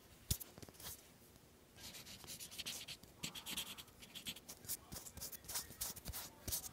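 Felt-tip marker scribbling back and forth on paper. It starts with a couple of soft taps, then about two seconds in becomes a faint, rapid run of scratchy strokes.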